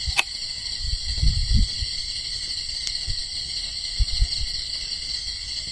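Steady high-pitched chorus of night insects, with several low bumps and rumbles and a sharp click just after the start.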